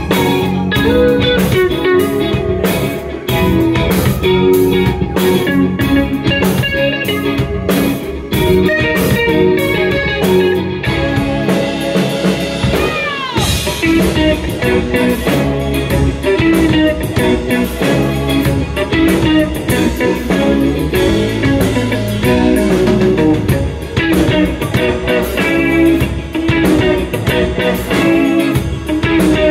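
Live instrumental band playing: electric guitar carrying the melody over drums, with a swooping pitch glide about halfway through.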